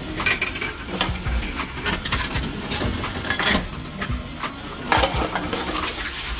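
Empty drink cans and plastic bottles being fed into a reverse vending machine: a series of sharp knocks and rattles, roughly one every second or so, as each container drops in and is taken by the machine, over a steady low rumble.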